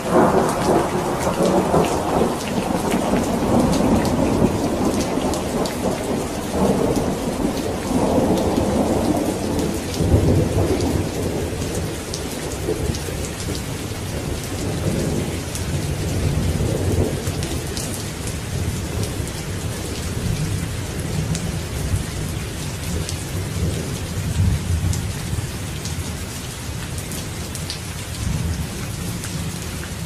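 Steady heavy rain, with a long roll of thunder that breaks in suddenly at the start and rumbles on, fading away over about twenty seconds.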